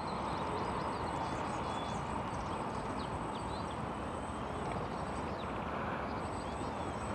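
Steady outdoor wind noise with scattered faint bird chirps.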